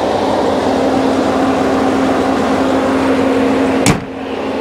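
Gasoline V8 (6.4-litre Hemi) of a RAM 4500 truck idling steadily under the open hood, with a steady hum over the running. Near the end a single loud thump, after which the engine sounds quieter.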